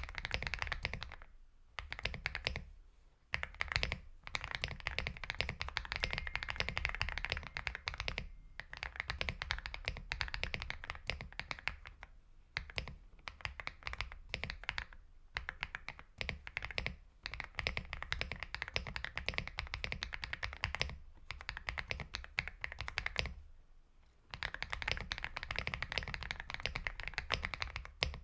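Aula F75 mechanical keyboard with Star Vector switches being typed on fast, a dense run of key clicks in long bursts with short pauses between them, the thumb also working the spacebar.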